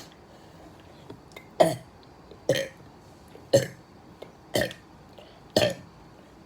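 A person burping five times in a row, about once a second; each burp is short and drops in pitch.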